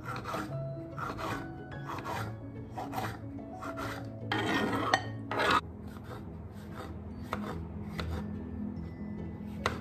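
Kitchen knife cutting on a wooden chopping board, dicing tomato and then slicing button mushrooms, with about two strokes a second. A louder, noisier stretch lasting about a second comes midway.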